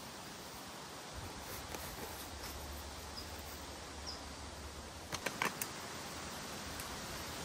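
Forest ambience: a steady hiss with a few faint, short high chirps. A quick run of four or five sharp clicks comes about five seconds in.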